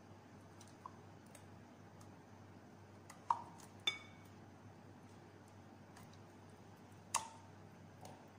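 A few sharp clinks and taps as thick cream is scraped out of a tin can into a glass bowl. One clink, about four seconds in, rings briefly. A low steady hum runs underneath.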